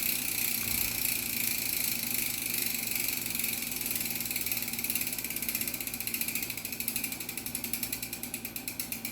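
Origin 8 Boost rear hub's freehub buzzing as the wheel spins freely: a fast ratchet of pawl clicks that slows down, the clicks coming apart and spacing out in the second half as the wheel coasts down.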